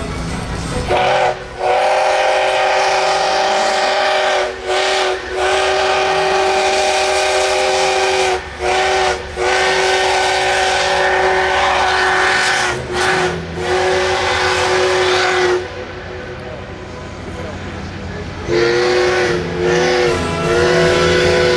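Steam locomotive DT-668's whistle sounding, a loud chord of several tones at once, blown in long blasts with several brief breaks. It stops for about three seconds partway through, leaving a rushing hiss, then sounds again with a few short dips in pitch before holding steady.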